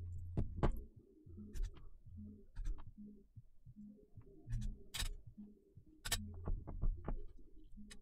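Scattered light clicks and taps from handling a small circuit board, solder wire and a soldering iron at a workbench over a low hum. The sharpest click comes about five seconds in, and a quick run of several follows a second later.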